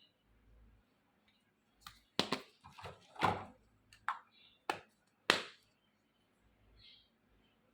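Miniature toy kitchen pieces handled and set down: about six sharp taps and clicks in the middle, irregularly spaced, with faint ticks before and after.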